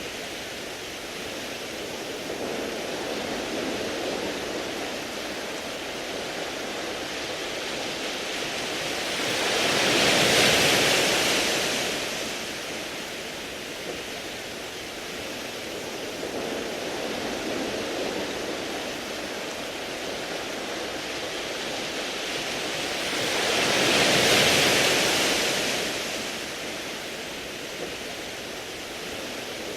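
Sea waves washing over a beach of smooth round pebbles: a steady wash with two larger waves swelling and fading, about ten seconds in and again near twenty-four seconds.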